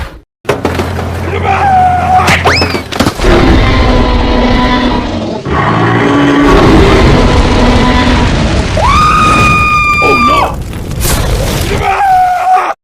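Loud, noisy sound-effect din with booms. Over it come whistle-like cries: a quick rising one, and another held for about a second and a half that then drops sharply.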